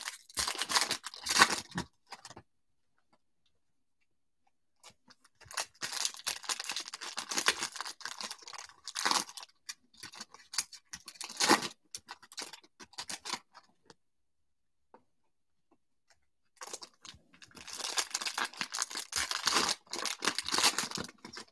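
Foil wrappers of 2020 Topps Stadium Club baseball card packs being torn open and crinkled by hand, in three bouts of crackling with silent gaps between.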